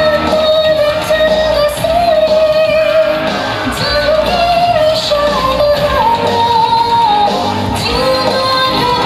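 A Nepali patriotic song plays loudly for the dance: a singer holds long notes over a steady band backing.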